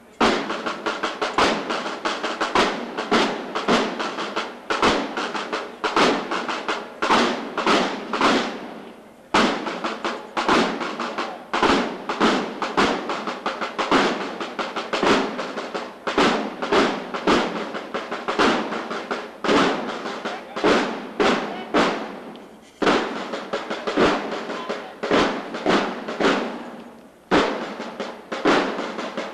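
A marching drum corps playing snare drums in a steady, repeating marching cadence, with rolls. The drumming breaks off briefly about nine seconds in, and twice more in the last third.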